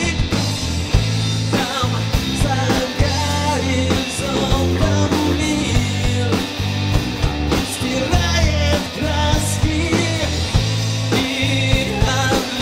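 Rock band playing live, with drums, bass and guitar.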